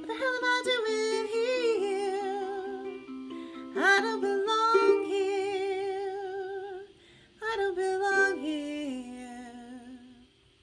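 A woman singing with vibrato while strumming chords on a ukulele. The music breaks off briefly about seven seconds in, resumes for one last phrase, and fades out on a held chord near the end.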